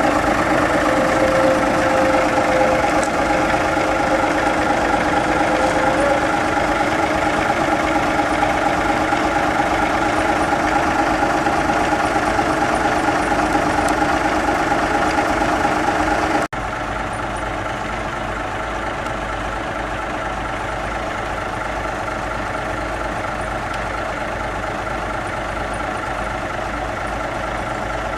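Small diesel switcher locomotive's engine idling steadily. About two-thirds of the way through, the sound drops abruptly to a quieter steady run.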